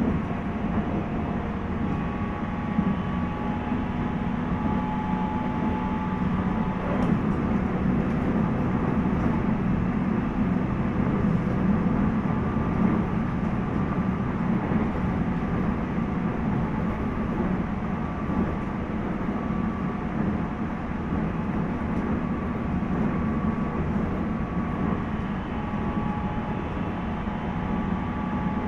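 Running sound inside the JR East 719 series electric motor car KuMoHa 719-1 between stations: a steady rumble of wheels on rail and traction-motor drone, with faint whining tones that come and go. The uploader wonders whether this car makes an abnormal noise.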